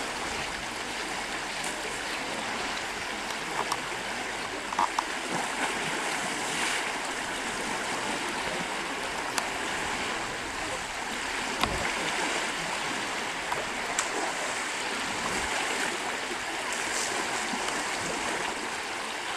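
Steady rush of running water, with a few brief faint ticks and chirps over it.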